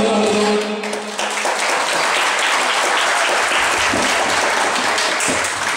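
The last held note of a song ends within the first second. Then the audience applauds, steady clapping that fades out near the end.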